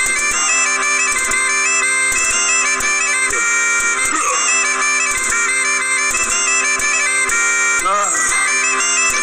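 Background music: a quick, high melody of short notes over steady held drone notes.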